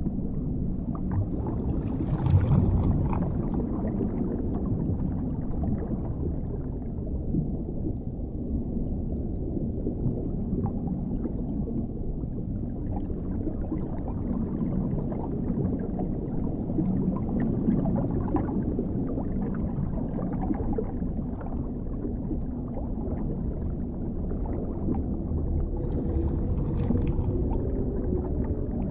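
Dark underwater ambience: a deep, muffled rumble that slowly swells and fades, with faint small clicks and crackles over it.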